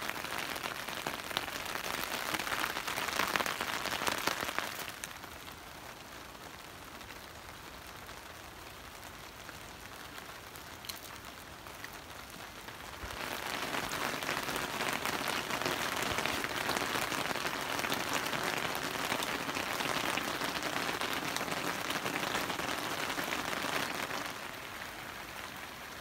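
Rain falling, an even hiss of drops on surfaces. It is louder for the first five seconds, eases for several seconds, and comes back louder through most of the second half.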